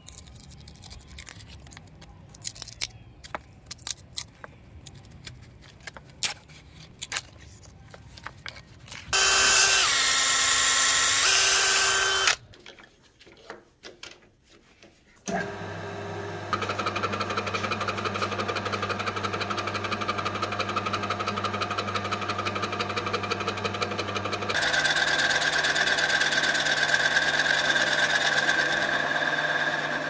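Scattered knocks and cracks of bark being split off a wooden stick, then a power tool runs loudly for about three seconds. About halfway through, a metal lathe starts and runs with a steady hum; near the end it grows louder and higher as its cutting tool turns down the chuck-held wooden blank for a knife handle.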